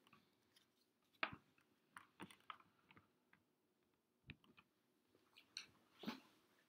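Faint, scattered small clicks and soft rustles of a person shifting and getting up from a couch, handling small things; the strongest come about a second in and again near the end.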